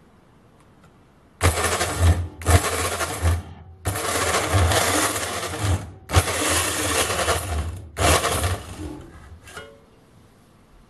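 VEVOR 1100-watt variable-speed portable band saw running and cutting through thin-walled square metal tubing held in a vise. The cutting starts about a second and a half in, comes in five loud stretches with short breaks, and stops shortly before the end.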